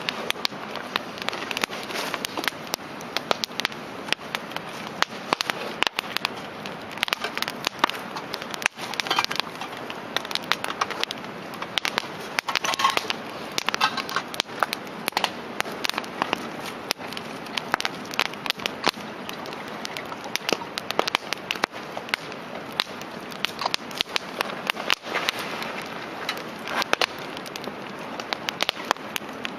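Wood campfire crackling, with frequent sharp pops and snaps over a steady hiss of burning.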